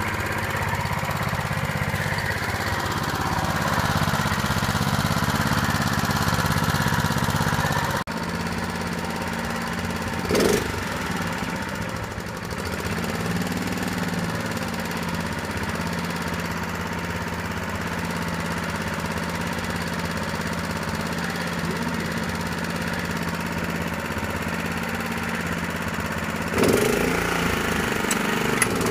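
Honda walk-behind lawn mower engine running steadily. Its sound changes abruptly about eight seconds in, there is a brief knock about ten seconds in, and it gets louder near the end.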